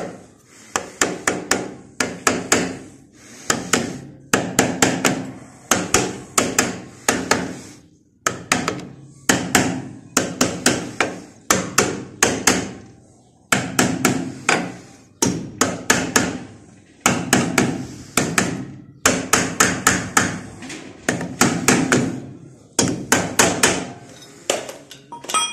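Hammer tapping on metal in quick bursts of about five to eight blows, a burst roughly every two seconds, each blow leaving a short metallic ring.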